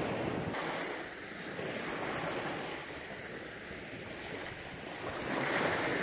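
Small waves washing onto the Lake Baikal shore under steady wind buffeting the microphone, rising a little louder about five seconds in.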